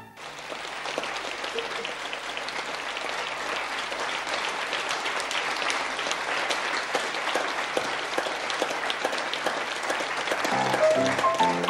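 Studio audience applauding: a dense, steady patter of many hands clapping. Near the end, music comes in over the applause.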